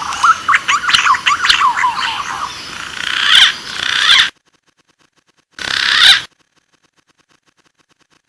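Punai (green pigeon) calling: a quick run of whistled, warbling notes, then harsher squealing bursts. The sound cuts out dead about four seconds in, leaving one short squealing burst in the silence that follows.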